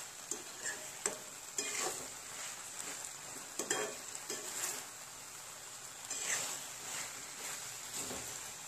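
Potato manchurian in sauce sizzling in a frying pan while it is stirred with a spatula, which scrapes and knocks against the pan at irregular moments.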